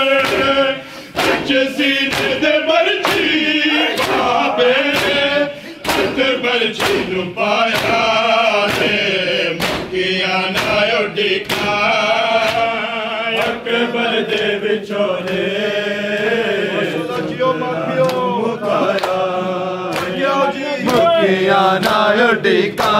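A group of men chanting a Punjabi noha in unison, with a steady rhythm of sharp hand slaps on bare chests (matam) beating time under the singing.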